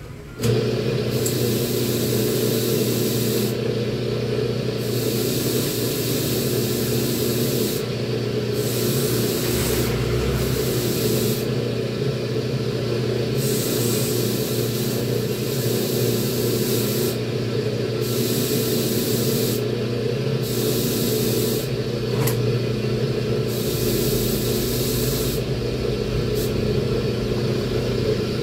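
A bench motor switches on and runs steadily while a small metal part is scrubbed clean against a spinning wire wheel. The loud hissing scrub breaks off for short pauses several times as the part is lifted away and pressed back.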